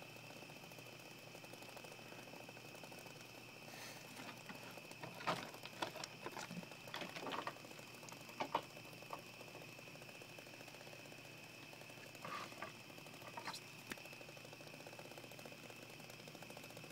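Cricket trilling steadily at a high pitch, with bursts of clicking and scraping handling noise about four to nine seconds in and again around twelve to fourteen seconds.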